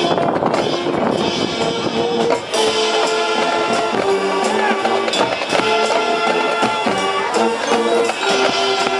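High school marching band playing: brass and wind instruments hold loud sustained chords over percussion hits. There is a brief break about two and a half seconds in, then a new phrase of held notes.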